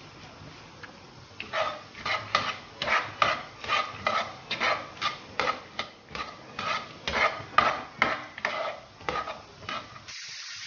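Chopped celery, carrot and onion being stirred in oil in a non-stick frying pan with a spatula: regular scraping strokes, two or three a second, starting about a second and a half in. Near the end the strokes stop and a steady hiss takes over.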